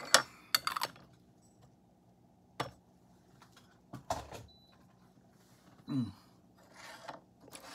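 Porcelain teaware handled for a gongfu-style brew: several short, sharp clinks and knocks, spaced out with quiet between, as a gaiwan and cups are moved and set down.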